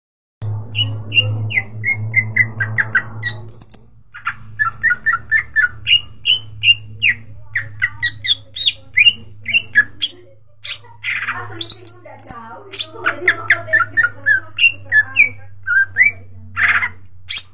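Greater green leafbird (cucak ijo) singing in full song: fast runs of short, down-slurred whistled notes, broken about eleven seconds in and again near the end by harsher, noisier notes. A steady low hum lies underneath.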